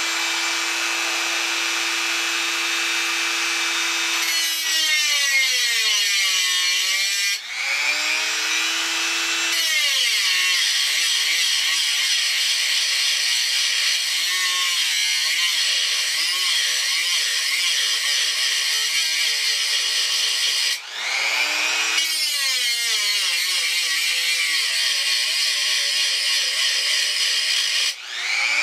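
Flex-shaft rotary tool with a small cut-off wheel cutting a slot into a knife's metal tang: a steady high-pitched whine whose pitch wavers and sags as the wheel bites into the metal. Three times the tool briefly slows, drops in pitch and spins back up.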